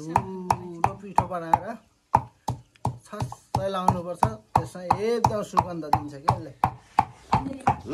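Wooden pestle pounding cloves and small cardamom pods in a wooden mortar: dull knocks at about three a second, with a short pause about two seconds in. Voices are faintly audible between the strikes.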